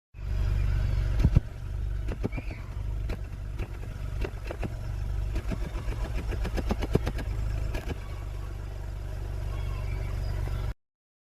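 Audi A1's 1.0-litre three-cylinder petrol engine running with a steady low hum, broken by irregular knocks, in a car that has logged random and cylinder-3 misfire codes (P0300, P0303). The sound cuts off suddenly near the end.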